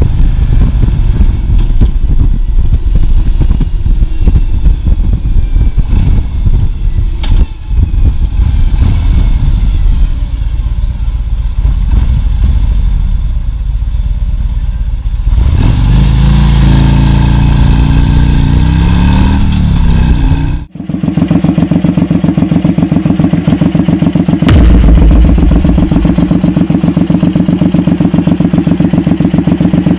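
Harley-Davidson V-twin touring motorcycle running on the road, its engine note rising as it accelerates about halfway through. After a cut, a Suzuki Boulevard M109R's 1783 cc V-twin idles, with one brief louder rev a few seconds later.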